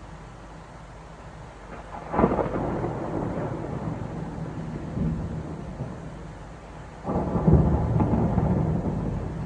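Thunder during a night thunderstorm: two claps, the first about two seconds in and the second about seven seconds in, each breaking suddenly and rumbling low for a few seconds before fading, over a steady hiss of rain.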